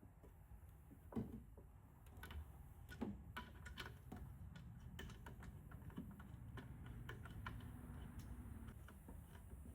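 Faint, scattered clicks and light taps from AN hose-end fittings and braided hose being handled during a test fit, over a low steady hum.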